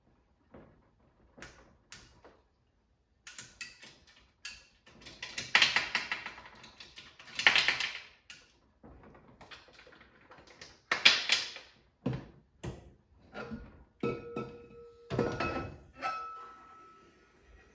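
Clamp knobs being loosened on a cast-aluminium All American pressure canner, then its metal lid being worked loose and lifted off. There are clicks and knocks, several loud scrapes of metal on metal, and a brief ringing near the end as the lid comes free.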